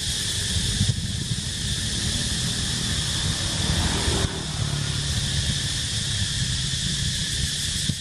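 Steady outdoor ambience: a continuous high-pitched insect drone over a low rumble.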